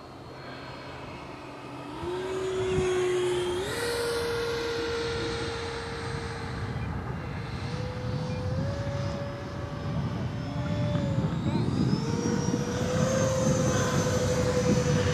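Electric ducted-fan motors of a radio-controlled model jet in flight: a whine that steps up in pitch several times as the throttle is opened, drops briefly about eleven seconds in and climbs again, over a steady rush of air, growing louder toward the end.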